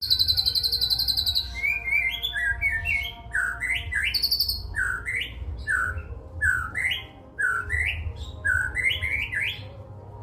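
White-rumped shama (murai batu) singing imitated cililin song: a fast high trill for the first second or so, then a long run of repeated rising whistled notes about twice a second, with a low rumble underneath.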